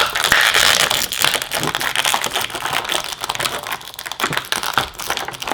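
Toy packaging crinkling and rustling in the hands as a small pony figure is unwrapped, a dense run of small irregular crackles and clicks that eases off somewhat around the middle.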